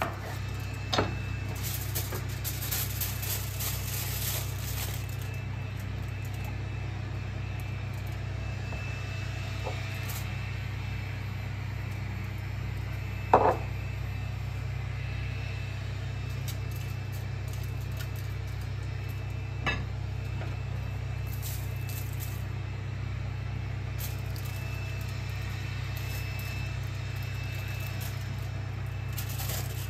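A steady low hum throughout, with a few sharp knocks of kitchen utensils on a wooden cutting board. The loudest knock comes about halfway through; smaller ones come near the start and about two-thirds of the way in.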